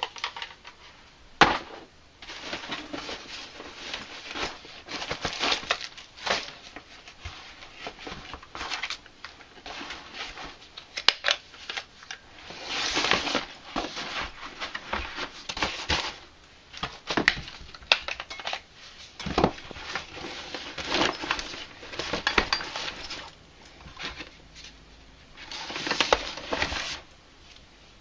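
Cordless power tools being packed into a soft fabric tool bag: the bag's fabric rustles and scrapes in irregular bursts, with occasional sharp knocks of the hard plastic tools, the loudest about a second and a half in.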